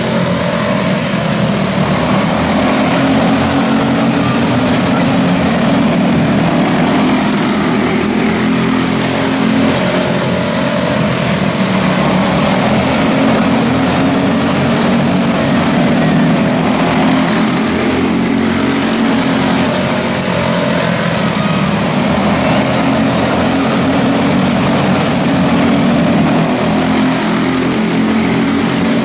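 A pack of quarter midget race cars with single-cylinder Briggs & Stratton Animal engines racing around a dirt oval. Several engines run at once, giving a steady, loud drone whose pitch wavers up and down as the cars lap.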